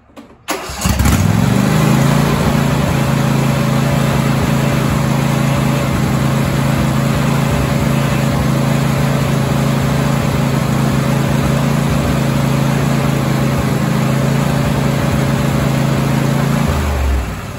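Briggs and Stratton twin-cylinder riding-mower engine cranking and catching within about a second, then running at a steady speed with no surging on its freshly rebuilt double-barrel carburetor. It winds down and shuts off near the end.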